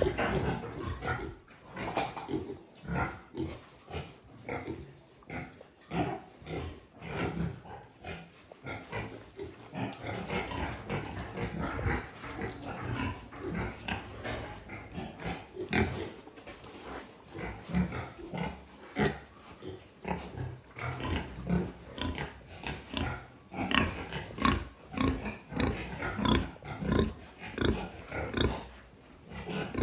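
Young pigs grunting in short, irregular calls, about one or two a second.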